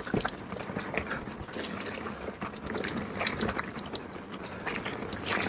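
Electric mountain bike running down a rough, rooty trail: the rear hub's freewheel clicks as it coasts, over irregular rattles and knocks from the bike and tyres on the ground.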